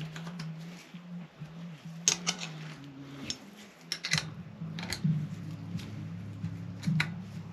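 Small hand tools clicking and clinking against metal carburettor parts in a few short bursts, like a ratchet being worked, as a part is refitted and tightened. A low humming tone that steps in pitch runs underneath.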